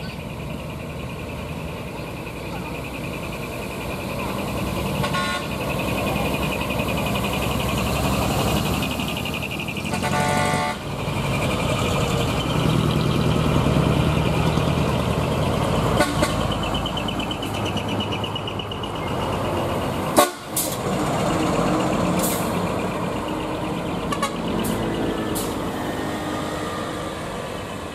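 Decorated Japanese trucks (dekotora) with split exhaust manifolds (mani-wari) driving slowly past one after another, their diesel engines running loud and rough through the modified exhausts. A truck horn sounds briefly about ten seconds in, and a sharp click comes about twenty seconds in.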